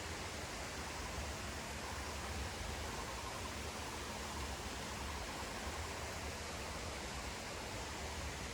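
Taiwan barbet giving a faint, rapid series of hollow repeated notes under a steady outdoor hiss.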